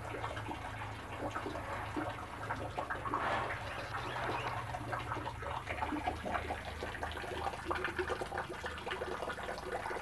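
Hatchling turtles paddling and scrambling in shallow water in a plastic tub: a busy run of small splashes, drips and clicks, over a steady low hum.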